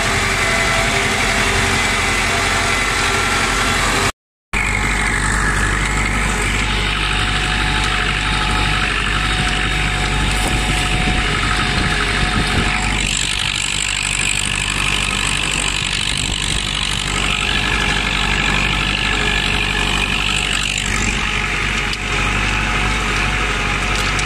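IMT 560 tractor's three-cylinder diesel engine running steadily under load while pulling a disc harrow through ploughed soil, heard from the driver's seat. The sound drops out for a moment about four seconds in.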